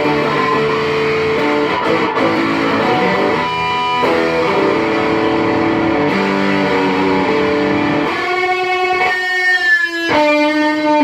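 Electric guitar with a single-coil middle pickup, played on the middle pickup alone. It plays sustained chords, then single notes that ring out in the last few seconds.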